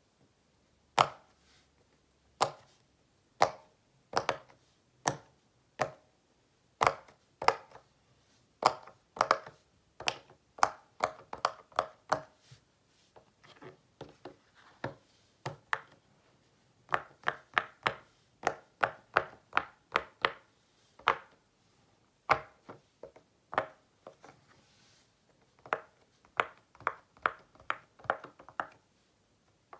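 Silicone pop-it fidget toy, its bubbles pressed one after another, each giving a short hollow pop. The pops come irregularly, sometimes in quick runs of two or three a second, with a few short pauses.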